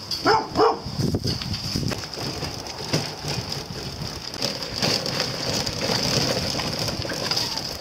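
Wagon cart carrying a plastic pet carrier, rattling as it is pulled, its rubber tyres crunching over dirt and gravel. A steady high buzz runs underneath, and there are a couple of short pitched sounds near the start.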